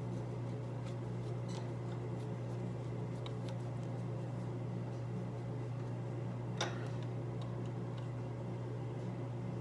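A steady low hum with a few faint clicks of small parts and tools being handled, and one sharper metallic tap about six and a half seconds in.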